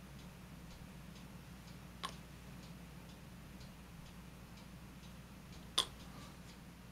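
Faint, steady ticking, about two ticks a second, over a low hum, with two sharper clicks from small plastic model parts being handled: one about two seconds in and a louder one near the end.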